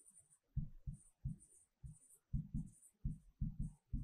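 Handwriting with a pen: a run of short scratching strokes with soft knocks against the writing surface, irregular, about a dozen in all.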